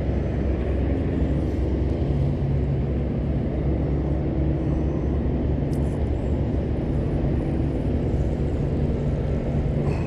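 A boat motor running steadily with a low hum.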